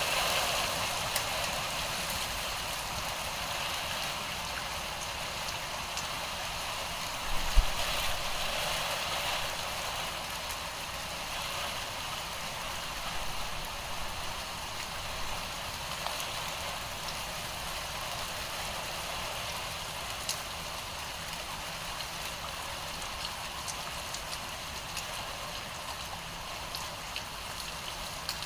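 Steady rain falling, a dense hiss of drops with scattered individual drip ticks, easing slightly in level over time. A single sharp low thump stands out about seven and a half seconds in.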